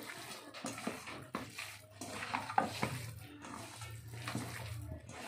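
A hand mixing chicken pieces through a spice marinade in a stainless steel bowl: wet squelching, with irregular knocks and clicks as the pieces hit the steel.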